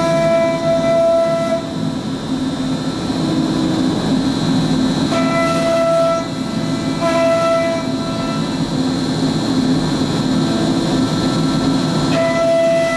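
MultiCam 5000 Series CNC router running, its spindle and dust collection making a steady loud machine noise as the head moves over a plywood sheet. A high, even whine from the spinning cutter drops out about a second and a half in, returns in short stretches in the middle, and comes back near the end.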